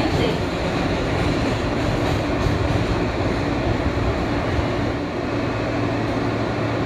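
New York City subway N train running on the elevated track, heard from on board: a steady rumble and rail noise with a low, even hum underneath.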